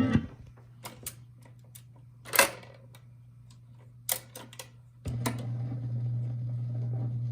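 Telefunken TW 504 record changer cycling between records: a run of mechanical clicks and clunks from the changer mechanism, with a louder clack about two and a half seconds in. About five seconds in the tone arm sets down with a thump, and a steady low hum carries on through the stereo.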